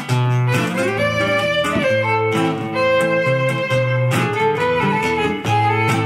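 Acoustic guitar and violin playing an instrumental passage: a rhythmic guitar accompaniment with repeating bass notes under a violin melody with some sliding notes.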